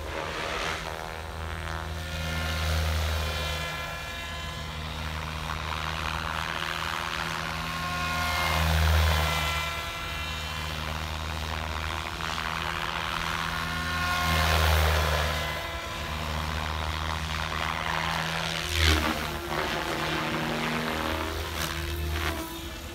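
SAB Goblin 570 Sports electric RC helicopter flying aerobatics: a steady rotor buzz with an electric-motor whine whose pitch rises and falls, swelling louder several times as it passes close.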